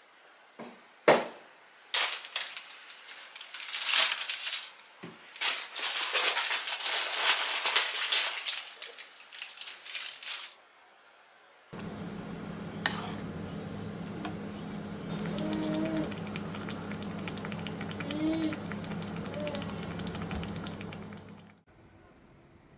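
Plastic snack wrappers crinkling and rustling as packets are handled in a glass jar, with a sharp knock about a second in. About twelve seconds in, a steady low electrical hum starts, with a few faint wavering tones over it, and it cuts off suddenly about ten seconds later.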